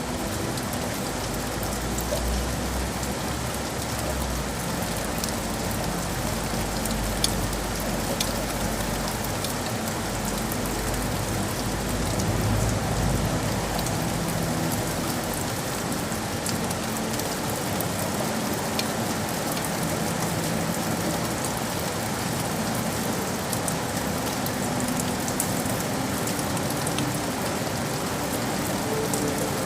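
Steady rain falling in a city, an even patter with scattered sharper drip clicks. A low rumble runs underneath through the first half and then fades.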